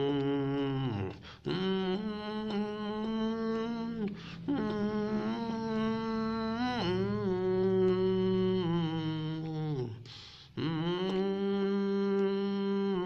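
A man humming a slow song melody with closed lips, holding long notes and sliding between them, stopping to draw breath about a second in, near four seconds and again near ten seconds.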